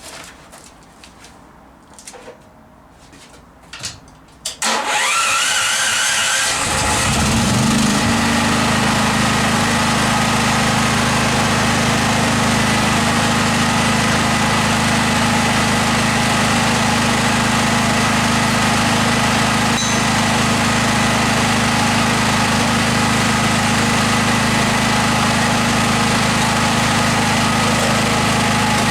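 A few knocks of handling, then a portable generator's engine starts about four and a half seconds in, picks up speed over a couple of seconds and settles into steady running.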